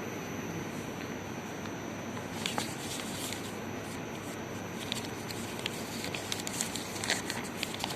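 Steady background hiss with scattered light clicks and taps, thickest in the second half, as of small parts being handled.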